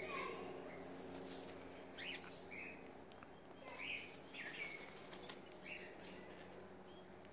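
Short soft bird calls, one every second or so, some with a quick falling sweep, from a flock of sulphur-crested cockatoos and hens foraging together. There is a brief flutter of wings about midway.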